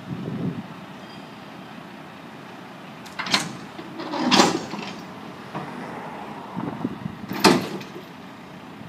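A heavy plow truck running while its hydraulic wing plow blade is lowered from upright to out at the side, with three loud clunks of the blade and its linkage: a little over three seconds in, again about a second later, and the loudest near the end.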